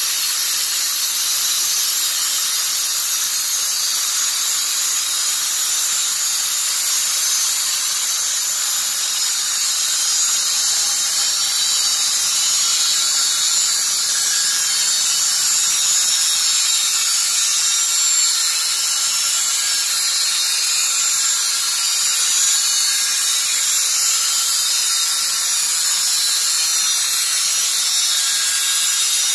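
Electric sawing machine running steadily as it saws through timber: a constant high hiss that never breaks.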